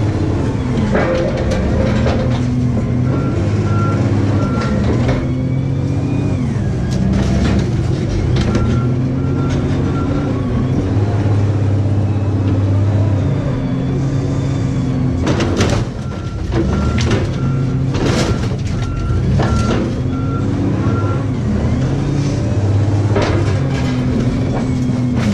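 Engine of a heavy junkyard car-handling machine running and revving up and down as it manoeuvres, its reversing alarm beeping in several spells. A few sharp metal clanks come about two-thirds of the way in.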